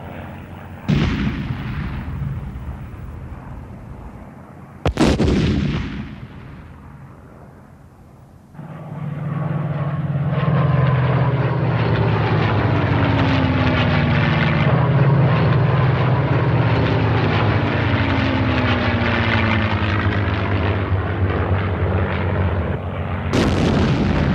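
Two heavy explosions about one and five seconds in, each dying away, then the Allison V-12 engine of a low-flying early P-51 Mustang running loud and steady from about eight seconds, its pitch falling slowly as it passes. Another blast hits near the end.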